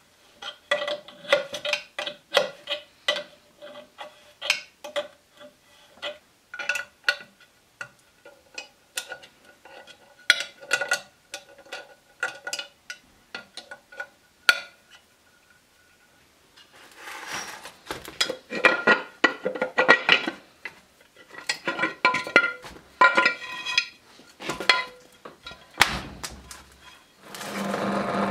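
Metal gear and housing parts of a gate opener's gearbox clicking and clinking as they are handled and refitted, with short ringing tones. Near the end the opener's electric motor starts running loudly, a noise the owner puts down to the motor itself.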